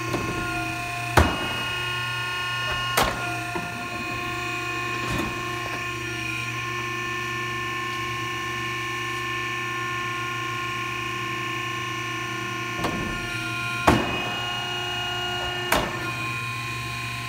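Cessna O-2A landing gear being cycled on jacks: a steady motor hum with several fixed tones runs throughout, broken by sharp metallic clunks about a second in, at three and five seconds, and three more in the last five seconds as the gear legs and doors move and lock.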